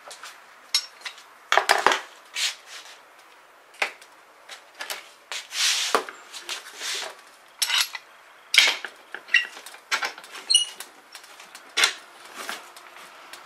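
Clamps being handled and fitted onto wooden boards: scattered clanks and knocks of a rusty steel screw clamp and a spring clamp against the wood, with a short metallic ring about ten seconds in.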